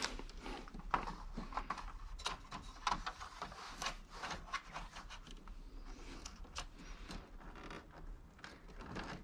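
A stack of letter paper being handled and loaded into the plastic rear paper tray of a Canon Pixma TR4520 printer: irregular light rustling with small plastic clicks and scrapes.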